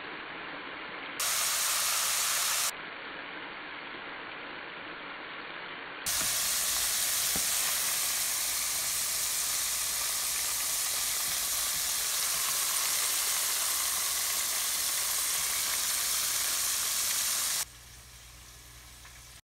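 Flour-battered alligator pieces deep-frying in hot oil: a steady sizzle, cut off and resumed abruptly several times at different levels. Near the end it gives way to a much quieter low hum.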